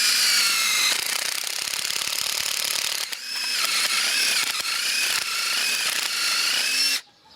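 Cordless drill running with a broken screwdriver bit boring into tree wood, its motor whine wavering in pitch as the load changes. It pauses briefly about three seconds in and cuts off near the end.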